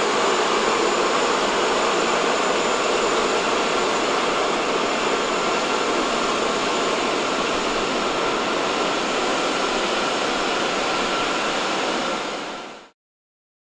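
Boeing 777-200ER's jet engines running at low power while the airliner taxis: a steady rushing jet noise with a thin, high-pitched whine. It fades out quickly near the end.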